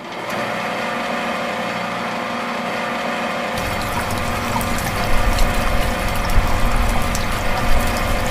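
A small DC electric motor starts and runs steadily with a whine, turning a belt-driven miniature model water pump. About three and a half seconds in, a rougher, crackling, splashing noise joins as water begins to pour from the pump's spout.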